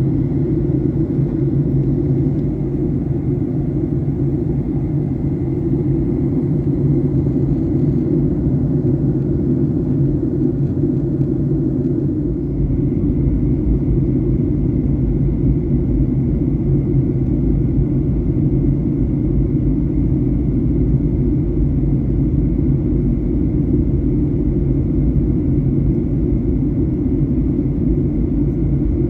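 Steady low cabin drone of a Boeing 737-900 in flight on descent: the CFM56-7B turbofans and the rush of air past the fuselage, heard from inside the cabin, with a faint high steady whine above the rumble.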